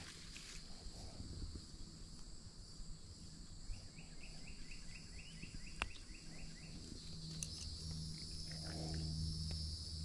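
Insects droning steadily at a high pitch, with a run of short repeated chirps, about four a second, for a few seconds near the middle, and a few faint clicks.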